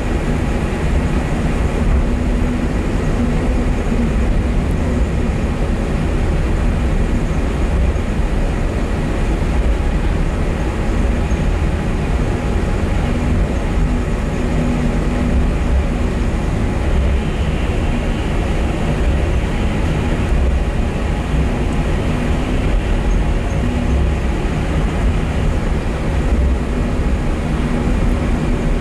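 Running noise inside a cable-hauled airport people-mover car travelling along its guideway: a steady, even rumble with a low hum.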